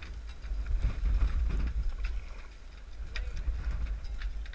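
Wind buffeting the GoPro's microphone as an uneven low rumble, with scattered light knocks and splashes from kayak paddling.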